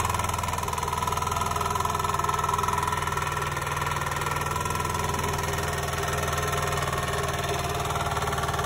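Small 1.5 kVA portable generator's single-cylinder four-stroke engine running steadily, freshly rebuilt with a new cylinder, push rod and valve set after it had knocked and seized.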